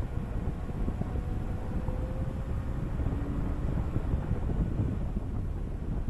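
Wind buffeting the microphone of a camera mounted on the roof of a moving car, over a low, uneven road rumble.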